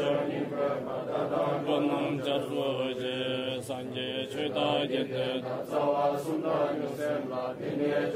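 Tibetan Buddhist liturgical chanting: a voice reciting prayers in a continuous, steady melodic chant, with short breaths between phrases.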